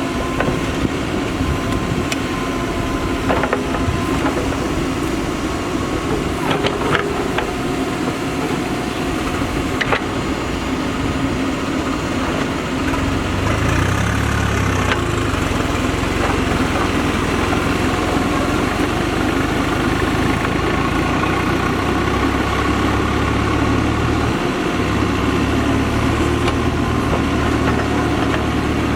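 Diesel engines of a Mahindra Earthmaster SX backhoe loader and a tractor running steadily at work, with a few sharp knocks in the first ten seconds. A deeper, steady engine drone joins about halfway through.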